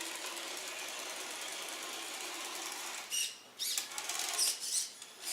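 Traxxas TRX-4 RC truck's electric motor and geared drivetrain whirring steadily as it drives and turns on a tile floor, then in short stop-start spurts for the last two seconds or so.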